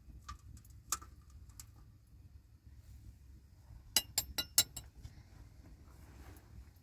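Sharp clinks of hard objects knocking together, like dishes or metal utensils: one about a second in, then a quick run of four or five near the middle.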